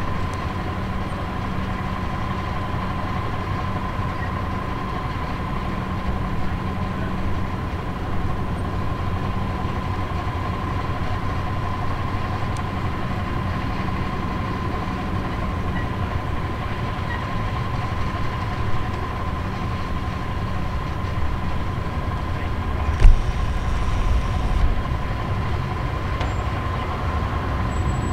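Steady drone of ramp machinery beside a parked Airbus A400M: a constant high whine over a low hum, typical of an auxiliary power unit or ground power cart running. A single sharp thump comes about 23 seconds in.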